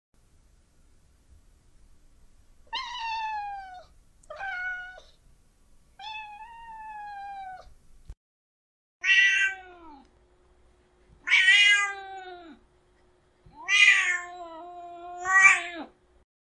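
Domestic cat meowing seven times, each call falling in pitch. The first three are quieter, and the last four, from about halfway through, are louder and harsher.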